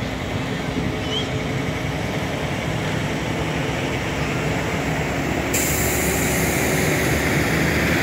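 Cockshutt 1600 tractor's engine running steadily while hitched to the pulling sled. It gets louder and harsher about five and a half seconds in.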